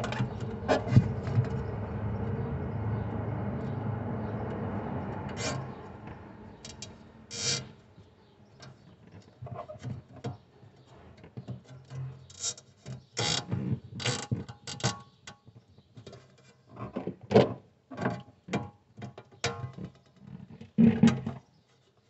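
Nylon cable tie being threaded and pulled tight to fasten a refrigerator temperature sensor to the cold plate, heard as scattered plastic clicks and ratcheting. A steady hum fades out about six seconds in.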